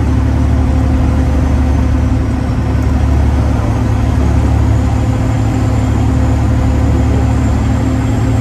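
Semi-truck diesel engine of a Freightliner Classic XL running at a steady drone, heard from inside the cab while the truck drives along.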